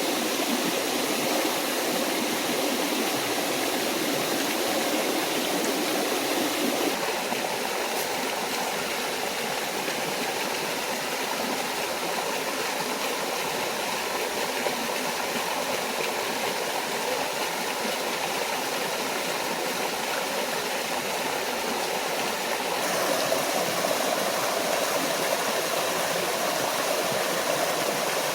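Small forest waterfall and stream, water rushing and splashing steadily. Its tone changes abruptly twice, about seven seconds in and again a few seconds before the end.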